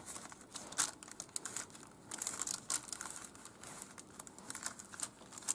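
Baking paper crinkling in short, scattered rustles as fingers press and pinch the edges of a stuffed veal fillet to seal them.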